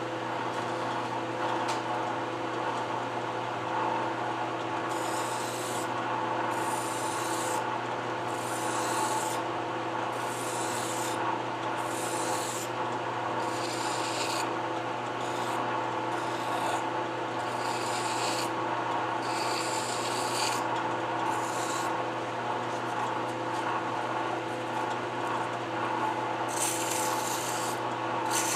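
Lathe running steadily, with a hand-held abrasive rubbing against the spinning workpiece in repeated strokes, about one every second, from about five seconds in until past the middle, then again near the end: polishing and deburring a freshly machined ring.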